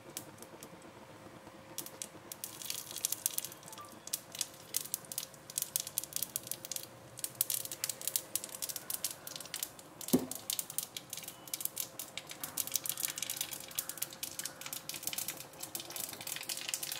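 Mustard seeds spluttering in hot oil in a small tempering ladle over a gas flame: quick, irregular crackling pops that begin about two seconds in and grow denser. A single louder knock sounds around ten seconds in.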